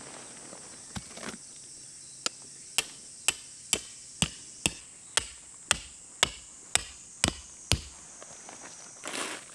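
A metal tent stake being hammered into gravelly ground: a dozen sharp, evenly spaced strikes, about two a second, after a couple of lighter knocks.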